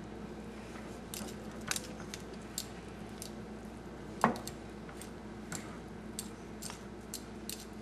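Wooden spoon stirring kasha and bow-tie pasta in a pan: scattered light clicks and scrapes of the spoon against the pan, with one louder knock about four seconds in, over a steady low hum.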